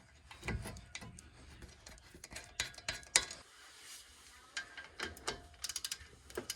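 Scattered metal clinks and clicks of brake parts and hand tools being handled, with a quick run of clicks near the end.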